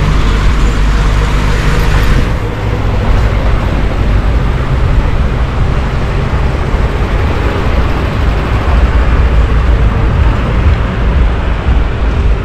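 Steady street traffic and road noise heard from a moving bicycle, with a heavy low rumble throughout.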